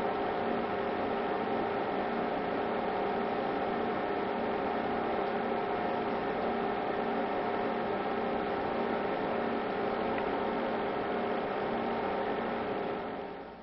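Steady electrical hum with hiss and several held tones, fading out near the end.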